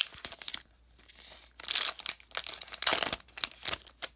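Foil wrapper of a Pokémon XY Evolutions booster pack crinkling and tearing as it is torn open by hand, in a series of irregular bursts.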